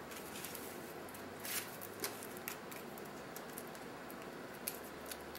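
Faint handling noise from a roll of foil duct sealing tape: a few light clicks and crinkles, over a low steady hiss.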